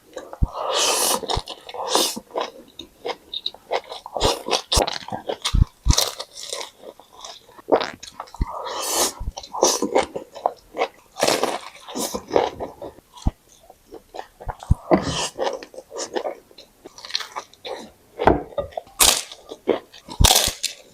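Close-miked eating: irregular bites, crunches and chewing of crunchy food, with sharp clicks in between.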